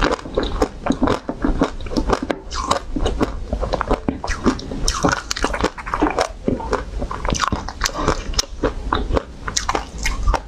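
Close-miked chewing of a green-coated ice cream bar, with many quick, irregular crunches and crackles from the hard coating.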